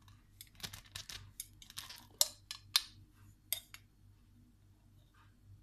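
Metal spoon clinking and tapping against a dish, a quick irregular run of a dozen or so taps that stops about four seconds in, as honey is spooned into strained onion juice and stirred.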